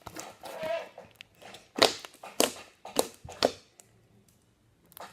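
Slime being worked by hand: a crackly squishing, then four sharp pops or clicks about half a second apart.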